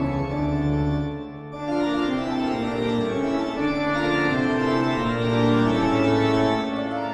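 Background music of slow, held organ chords, dipping briefly about a second in.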